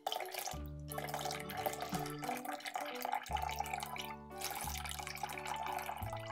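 Water poured from a cup splashing steadily over blocks of ice in a stainless steel sink, with background music playing.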